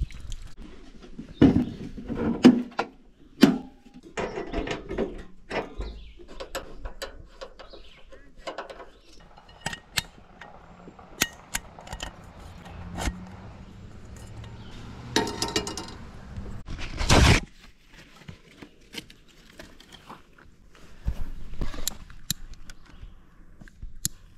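Clicks, clatters and knocks of camp cooking gear being handled, with scattered bumps and one louder rush of noise about seventeen seconds in.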